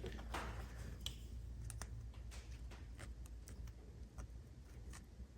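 Faint, scattered small clicks and ticks of wires and a connector being handled and pushed into place, over a low steady hum.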